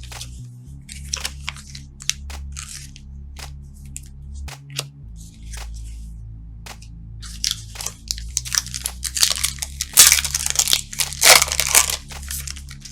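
Trading card pack wrappers being torn open and crinkled, with short clicks of cards being handled; the crinkling gets loudest and busiest in the last few seconds. Quiet background music plays underneath.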